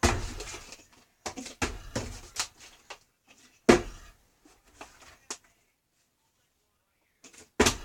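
Plastic water bottle being handled and flipped, with clattering knocks and a sharp thud about four seconds in as it hits the surface, then a few light knocks and another loud thud near the end.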